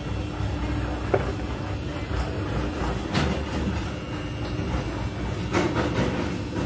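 A steel pot boiling hard on a gas burner: a steady low rumble, with a few light clicks scattered through it.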